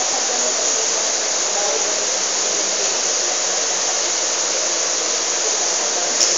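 Steady rushing noise with faint indistinct voices underneath, and a single short click near the end.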